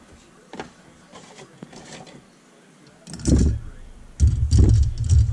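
Light metallic clicks of valve springs being handled and set over the valve stems on an aluminium LS cylinder head, then loud dull thumps and rustling about three seconds in and again from about four seconds.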